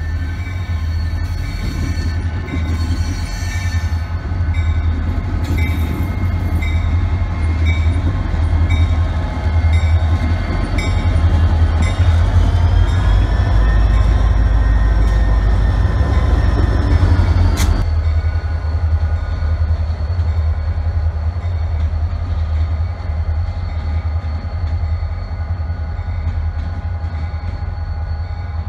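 Two diesel-electric freight locomotives running light past at close range: a heavy engine rumble with a high whine on top. About halfway through, the whine bends in pitch and the sound is loudest as the units pass close, then cuts off suddenly, leaving a steadier, slightly quieter engine rumble.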